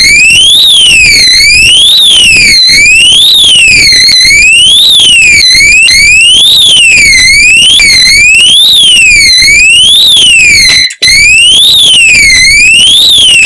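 Oxford Screamer 7 disc lock's built-in alarm sounding: a loud siren sweeping up and down in pitch, each rise and fall taking just over a second. It breaks off for an instant about eleven seconds in.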